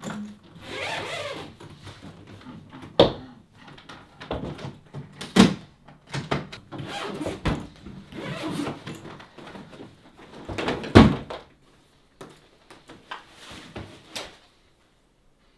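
A hard-shell suitcase being laid down and handled for packing: four sharp knocks and thumps of the shell, the loudest late on, with scuffing and rustling between them.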